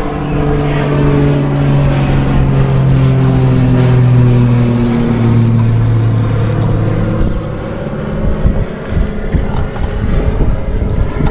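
Engine drone of a passing motor, its pitch falling slowly as it goes by and fading out about seven seconds in.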